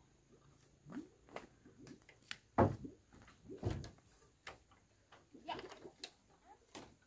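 Scattered knocks, thumps and clicks of wood: a plank window shutter being pushed open in a wooden wall, and footsteps on a wooden stair-ladder near the end.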